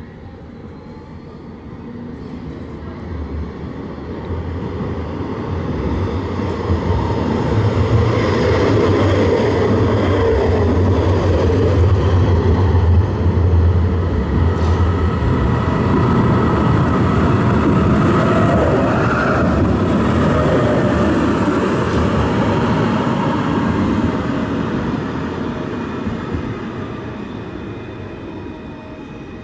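Low-floor electric tram approaching, passing close and running away: wheels on the rails with a steady low hum and a faint electric whine that glides in pitch. The sound swells over the first several seconds, stays loud through the middle and fades near the end.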